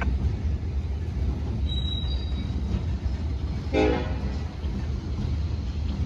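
Diesel freight locomotive running with a steady low rumble, and a single short horn toot about four seconds in.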